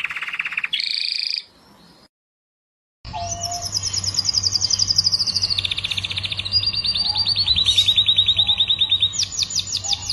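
Domestic canary singing in rapid trills of repeated notes, moving to a new trill every second or so. The song breaks off about a second and a half in and resumes after a short silence, now over a low steady hum.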